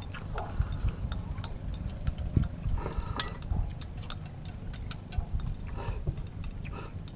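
Scattered light clicks and clinks over a steady low rumble, with faint voices in the background.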